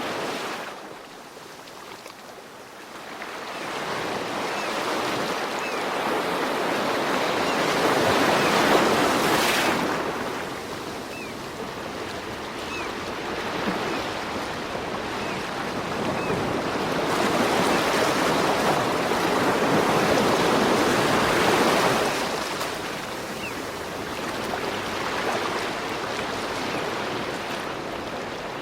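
Ocean waves breaking and washing in: two long swells build and fade, with a quieter wash between them.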